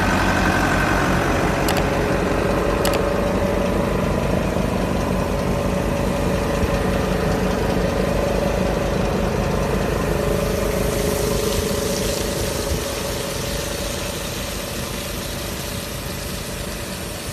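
A John Deere tractor's diesel engine runs steadily, driving a slurry tanker's vacuum pump through the PTO, with a steady whine in the mix. About ten seconds in, a hiss joins as slurry sprays out behind the tanker.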